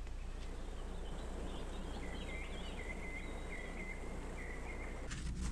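Birds chirping in short, repeated high notes over a steady low outdoor background hum; the chirps begin about a second in and stop shortly before the end.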